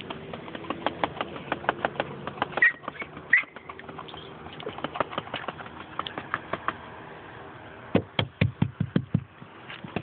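Small white dog making quick, repeated honking sounds, several a second, with a louder, closer-spaced run of them about eight seconds in.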